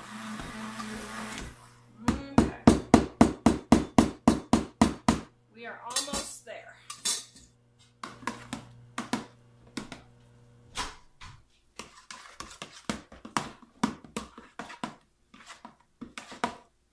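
Stick blender running in thick hot-process soap, switched off about a second and a half in. A fast, even run of loud knocks follows for about three seconds, about five a second, then irregular knocks and clinks of a spoon stirring and scraping the soap in a plastic container.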